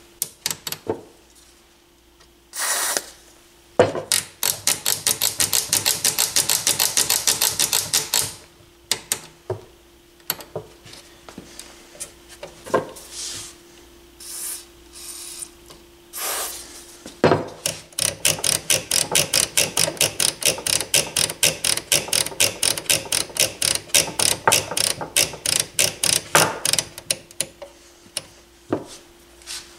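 Short hisses of contact cleaner sprayed through an extension straw into the receiver's controls. After each spray comes several seconds of rapid clicking as the control is turned back and forth to work the cleaner into the dirty, scratchy pots.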